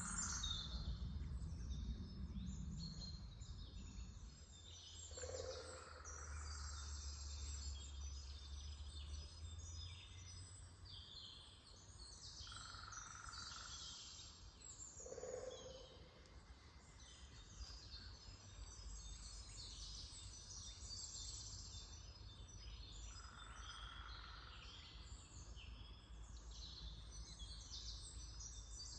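Several songbirds singing and chirping at once in an early-spring woodland morning chorus, with a lower call repeating every several seconds. A low rumble sits underneath for about the first ten seconds.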